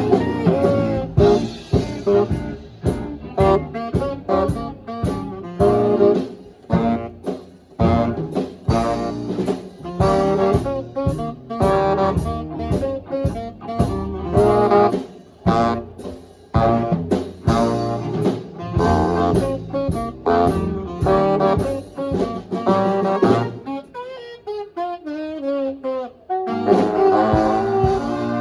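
Live swing band playing an up-tempo jazz number, saxophone and brass over a drum kit with a steady beat. A little before the end the band thins out to a short solo run, then the full band comes back in.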